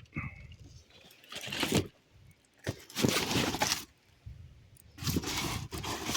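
Junk in a dumpster being rummaged through: three bursts of scraping and shifting debris, each about a second long, with short quiet gaps between them.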